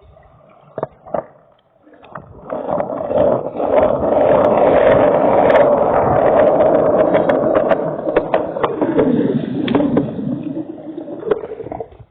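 Loud rushing noise with scattered knocks and rattles, as from riding in the rain with the phone's microphone exposed to wind and spray. It builds up about two seconds in and cuts off abruptly near the end.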